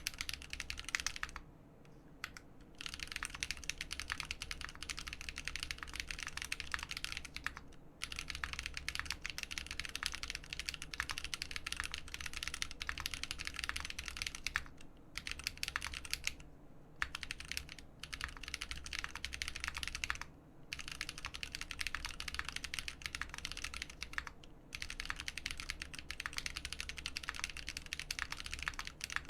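Continuous fast typing on a RAMA Thermal mechanical keyboard with lubed AEBoards Naevy linear switches on an aluminium plate and GMK keycaps, a dense run of keystrokes broken by a few brief pauses.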